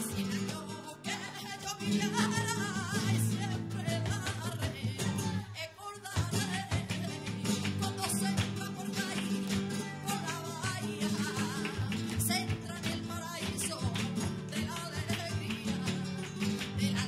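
Live flamenco music: a singer's wavering, ornamented cante over acoustic guitar, with frequent sharp percussive hits. The music drops back briefly about five to six seconds in.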